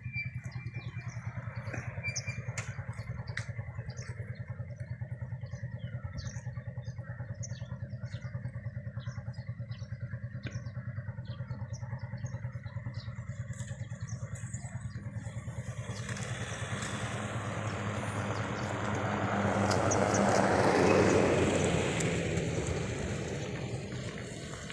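A small engine runs steadily with a low hum and a fast, even ticking. About two-thirds of the way in, a passing vehicle swells to its loudest and then fades away.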